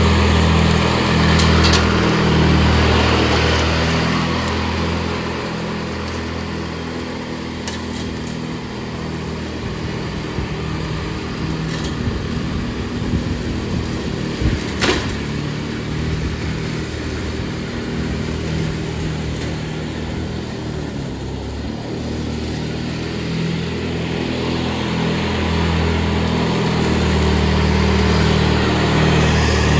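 Ride-on lawn mower engine running steadily, its sound swelling and easing as the load and distance change, with one sharp knock about halfway through.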